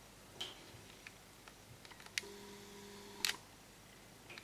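Handheld video camera's zoom motor whirring steadily for about a second, with a sharp click as it starts and a louder click as it stops, among scattered faint clicks from handling the camera.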